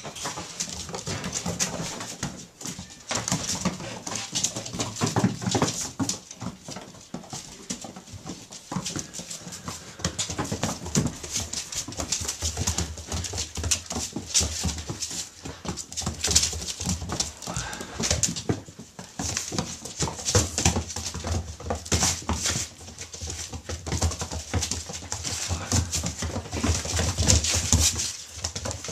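A litter of six-week-old puppies playing rough and tugging at a toy. Puppy whines and yaps come over a busy, irregular run of clicks and scuffles.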